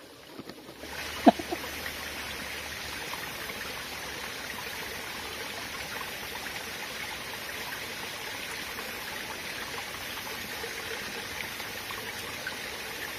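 Small rocky forest stream trickling and flowing steadily, with a sharp tap about a second in.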